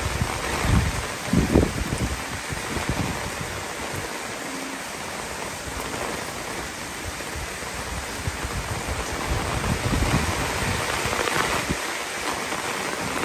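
Heavy typhoon rain pouring steadily, with gusts of wind buffeting the microphone in brief low rumbles, the strongest about a second and a half in and more around ten seconds in.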